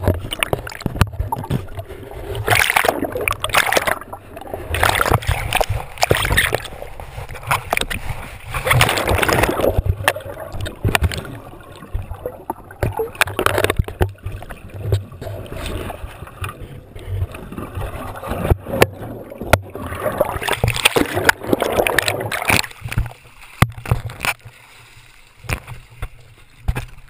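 Sea water sloshing and splashing over a GoPro in its waterproof housing at the surface, muffled and coming in uneven surges.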